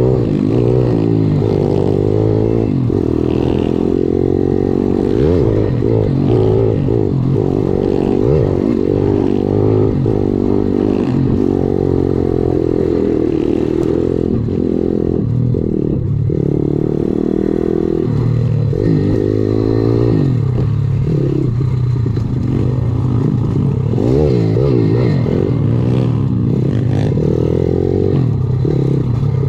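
Viar 150 SF R pitbike's single-cylinder four-stroke engine running hard on a rough dirt trail, revs rising and falling over and over as the throttle is worked, with clatter from the bike over the bumps.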